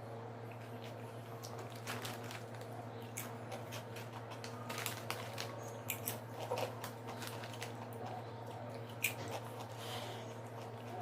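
A person crunching and chewing potato chips close to the microphone, as a run of irregular crisp clicks and crackles. A steady low hum runs underneath.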